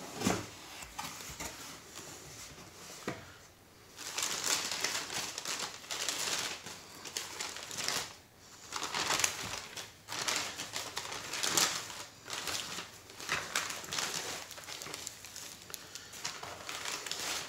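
White tissue packing paper rustling and crinkling in uneven bursts as hands pull it back from the contents of a cardboard mailer box. A couple of sharp knocks come in the first few seconds, as the box is opened.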